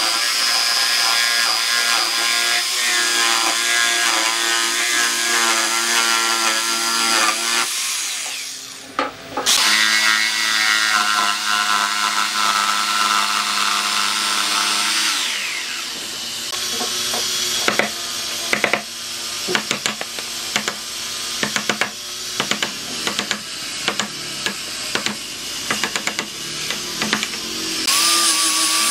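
Makita corded jigsaw cutting through a wooden board, its motor and reciprocating blade running steadily, briefly stopping and starting again about a third of the way in. Through the second half the sound breaks into many irregular sharp clacks and knocks. Near the end an angle grinder with a sanding pad starts up.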